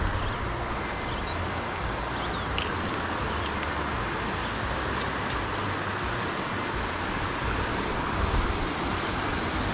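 Steady rushing of a shallow brook running over stones, with an uneven low rumble of wind on the microphone.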